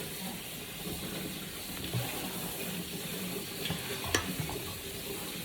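Kitchen tap running steadily into a sink, turned on too hard, while strawberries are rinsed under it. There is one sharp click about four seconds in.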